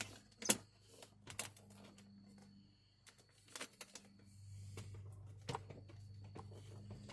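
Scattered light clicks and knocks from car door parts being handled and fitted, the sharpest about half a second in, over a steady low hum.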